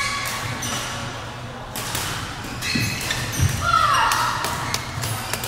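Badminton doubles rally: several sharp racket hits on the shuttlecock, and a squeak of a sneaker on the court floor about four seconds in.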